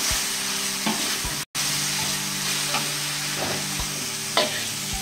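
Chili spice paste frying in oil in a wok with a steady sizzle. A metal spatula scrapes and knocks against the pan several times as the paste is stirred.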